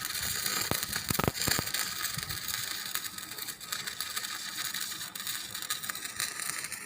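Steady crackling hiss, with a few sharp clicks in the first two seconds.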